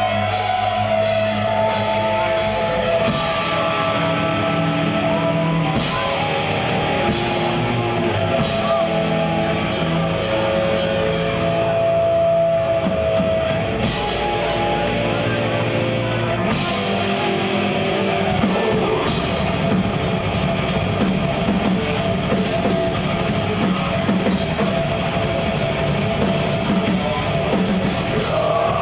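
Progressive death metal band playing live: a drum kit with rapid cymbal hits under held, sustained instrumental notes, loud and steady throughout.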